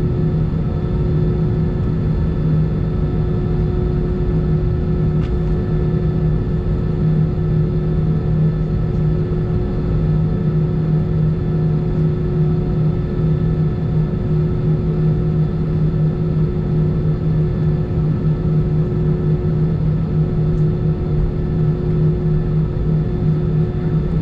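Airbus A319 cabin noise while taxiing: the jet engines run at low thrust with a steady drone and a constant low hum, some thin tones above it, and no rise in power.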